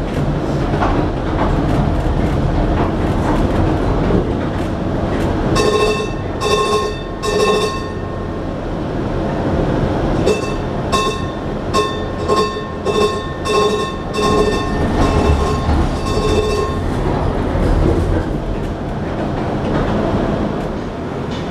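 A 1948 St. Louis PCC streetcar running, heard from inside the car: a steady rumble with wheels clattering on the rails. A bell is struck three times about six seconds in, then about ten more times in quick succession, roughly one and a half strikes a second.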